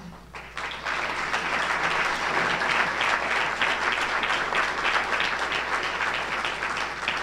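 Audience applauding, many hands clapping at once. It swells within the first second and eases off slightly near the end.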